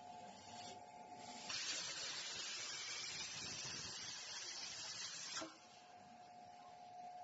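Plasma cutting torch on a CNC plasma cutting machine hissing for about four seconds, starting abruptly about a second and a half in and cutting off suddenly. Before and after it a steady high whine runs, stopping while the torch hisses.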